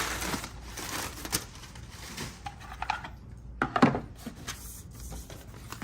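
Parts being handled and set down while a box is unpacked: light irregular knocks and clicks with rustling packaging.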